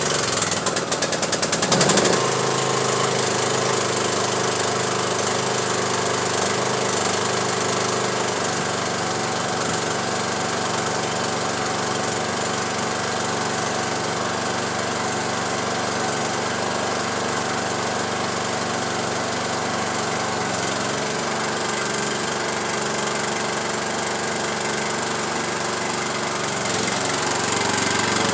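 Craftsman YT3000 lawn tractor engine turned over by its starter for about two seconds, then catching and running steadily, a little louder near the end.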